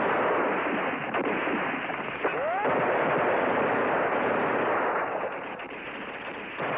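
Battle sound effects: dense gunfire and explosions making a continuous din, with a brief whistling whine about two seconds in. The din eases a little near the end.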